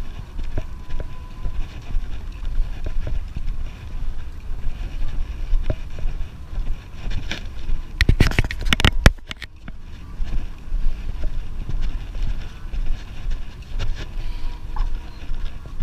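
Wind and handling noise on a camera microphone carried on a walk: a steady low noise that rises and falls quickly, with a brief cluster of sharp knocks and rattles about eight seconds in.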